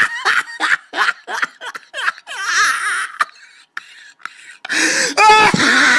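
A man laughing hysterically. It starts as a run of quick choppy bursts, then a high wavering squeal, a short pause, and near the end a loud, long, high-pitched shrieking laugh.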